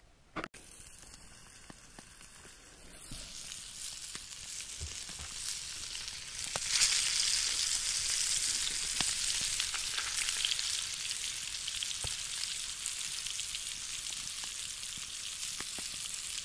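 Seasoned chunks of trout frying in melted lard in a small pan over a campfire: a steady sizzle with scattered pops, faint at first and growing louder over the first several seconds.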